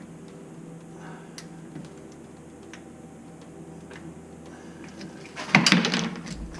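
Light scattered clicks of hand tools and metal fittings being handled, then a loud clatter lasting under a second about five and a half seconds in.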